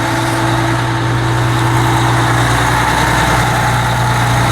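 A large engine idling with a steady low hum that does not change in pitch or level.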